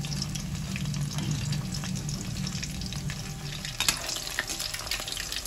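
Chicken pakoras crackling and sizzling as they deep-fry in hot oil, with a metal spoon scraping the wok as they are turned and a sharp clink of metal on the wok about four seconds in.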